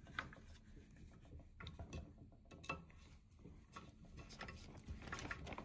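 Faint irregular clicking and ticking of a screwdriver turning small countersunk Phillips screws into a metal plate and block.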